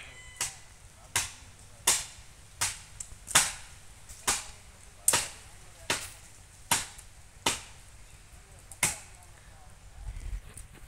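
A hand blade chopping into a tree: about eleven sharp, even blows, roughly one every three-quarters of a second, stopping about nine seconds in.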